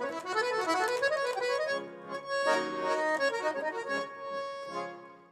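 Button accordion playing a melody over sustained chords, fading out near the end.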